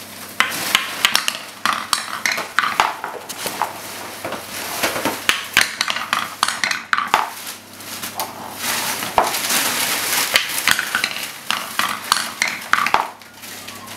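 Wooden toy clatter from a pound-and-roll tower: a child's wooden mallet knocking and wooden balls rattling and dropping through the tower, many irregular sharp knocks with no steady rhythm.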